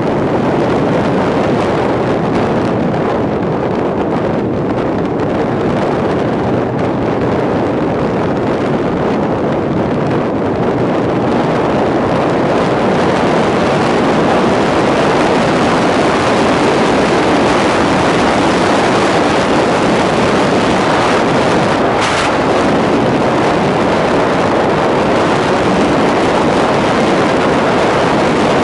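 Wind buffeting the microphone of a camera on a moving vehicle at highway speed, with steady road and engine noise beneath it. There is a short burst of hiss about three quarters of the way through.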